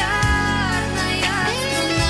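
Pop song music: a held, gliding melody line over steady bass notes and a beat.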